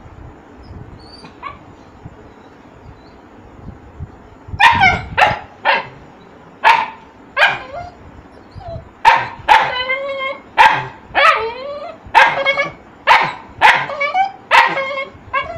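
Puppy barking: quiet at first, then from about four and a half seconds in a string of a dozen or more sharp, high-pitched barks, about one or two a second, some drawn out into yelps.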